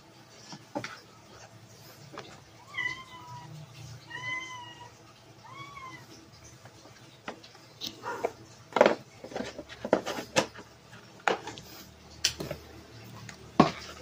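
A cat meows three times, short calls about a second and a half apart. In the second half, a run of sharp plastic clicks and knocks as the upright vacuum cleaner's filter cover and dustbin are handled and the dustbin is lifted out.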